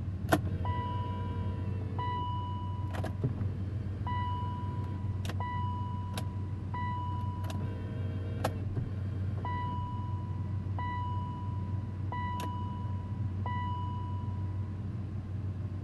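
Ignition key being turned again and again in a 2000 BMW E39 528i that will not crank. Sharp clicks come with each turn, with about nine electronic beep tones of roughly a second each, all at one pitch, over a steady low hum. The starter never turns the engine.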